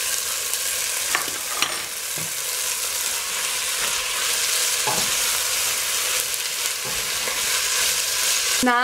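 Canned tuna sizzling as it is stirred into a pot of sautéed onions and tomatoes: a steady frying hiss, with a few clicks of the spoon and fork against the pot.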